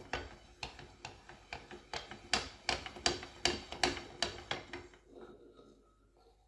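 Metallic clicking, about three clicks a second, as a gear on the SAJO milling machine's feed shaft is turned by hand; the clicks grow louder in the middle and die away about five seconds in.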